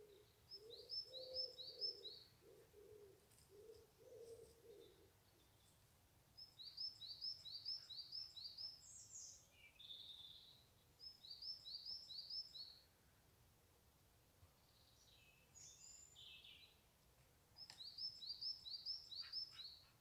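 A small songbird singing a short, fast phrase of five or six high notes, repeated four times a few seconds apart, with a few single calls between. A run of low cooing notes sounds in the first five seconds. All of it is faint.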